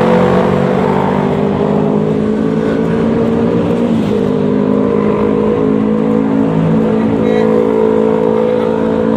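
Yamaha XMAX 300's single-cylinder scooter engine running under way at steady throttle. The pitch dips briefly about four seconds in as the throttle eases, then picks straight back up.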